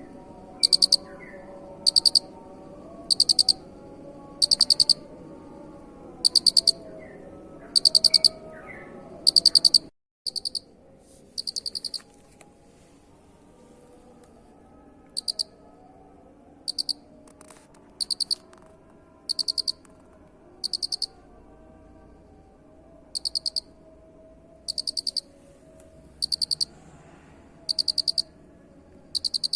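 A cricket chirping in short, high trills that repeat about once every second and a half over a low background murmur. The murmur drops out briefly about ten seconds in and comes back quieter.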